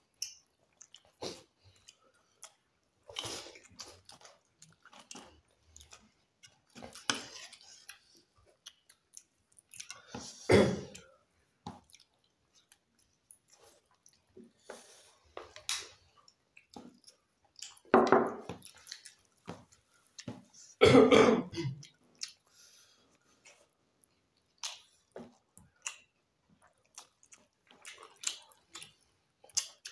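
Close-miked eating sounds: chewing and wet mouth clicks as rice and chicken curry are eaten by hand. A few louder short noises stand out, the loudest about ten, eighteen and twenty-one seconds in.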